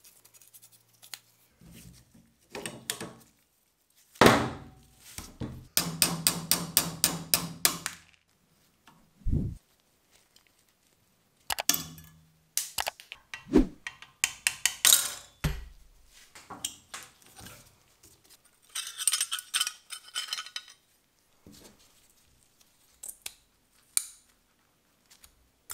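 Steel parts of a rusted Kar98k rifle action being knocked, tapped and clinked during disassembly. There is a sharp knock about four seconds in, then a rapid run of about twenty light clicks, a single low thud, and more knocks. A brief hiss comes about two-thirds of the way through.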